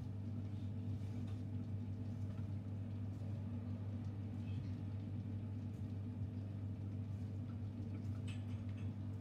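A steady low hum, with faint rustling of steamed barley couscous grains being rubbed and tossed by gloved hands in a clay dish; the rustle is clearest about eight seconds in.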